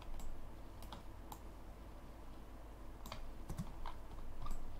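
Computer mouse and keyboard clicks, about eight sharp clicks at irregular intervals, over a low steady hum.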